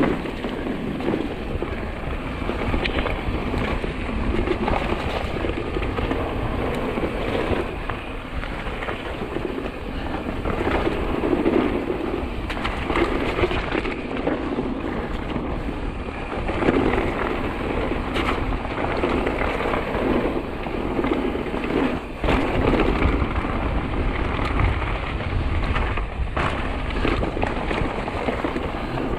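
Mountain bike riding fast down a rough trail: continuous tyre noise over gravel and rock, with the bike rattling and knocking, and wind rumbling on the camera microphone.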